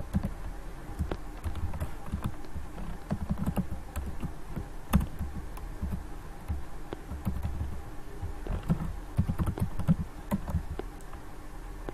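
Typing on a computer keyboard: irregular keystroke clicks in quick runs with short pauses between them, as code is typed.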